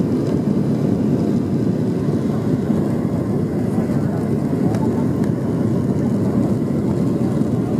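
Steady low rumble of jet engines and airflow heard inside an airliner cabin during the landing.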